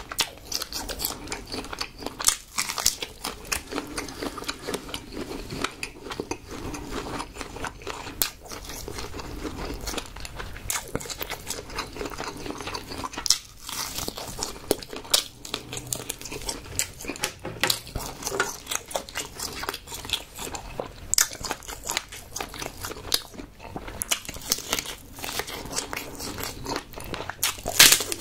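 Close-miked eating of cooked tiger prawns: shells cracking and crackling as they are peeled and bitten, with wet chewing, in a dense run of irregular crunches. The loudest crack comes near the end.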